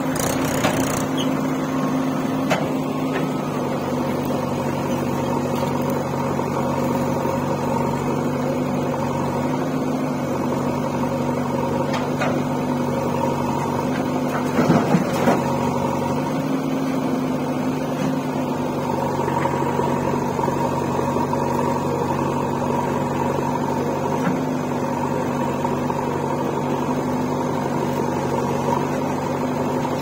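Diesel engines of a JCB 3DX backhoe loader and a farm tractor running steadily at low revs, a constant drone. About halfway through come a few quick knocks as a bucketful of soil is dumped into the steel tractor trolley.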